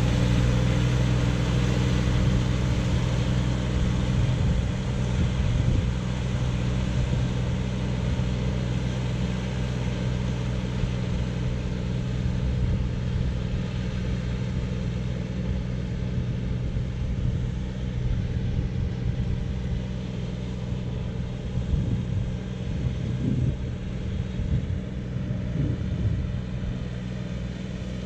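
John Deere tractor's diesel engine running steadily under load while pulling a plough, slowly fading as the tractor moves away, with brief low rumbles now and then.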